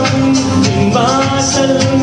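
A man singing a Tamil film song live into a handheld microphone over a recorded backing track with a steady beat.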